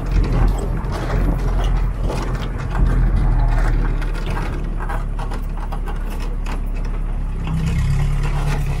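Vehicle engine running steadily while driving, with road noise; the engine hum grows a little louder near the end.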